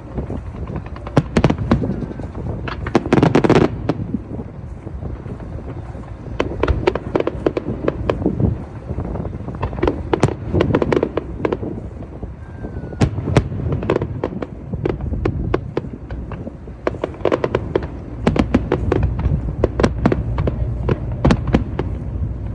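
Fireworks show: aerial shells bursting in quick succession, many sharp bangs and cracks over a continuous low rumble.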